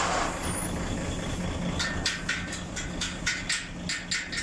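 A steady low engine hum, joined about two seconds in by a fast, even series of short hissing bursts, about four a second.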